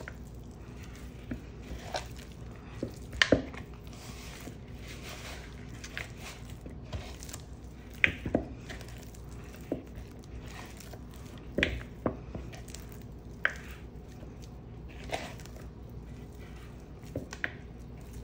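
Hands kneading a stiff, sticky peanut-butter dough in a bowl: soft squishing and pressing, with irregular sharp knocks, the loudest about three, eight and twelve seconds in.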